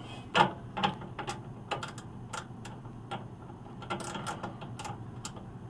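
A wrench loosening the cap nut on a rooftop HVAC unit's belt tensioner: a string of irregular metal clicks and clinks, a few each second.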